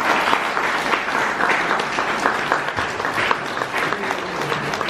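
Audience applauding, many hands clapping in a steady dense patter.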